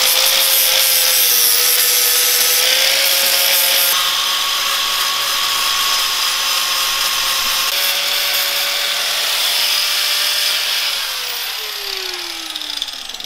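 Electric angle grinder running and grinding paint off the steel frame down to bare metal before welding: a steady motor whine under the harsh grating of the disc on metal. Near the end the grinder is switched off and its whine falls in pitch as it spins down.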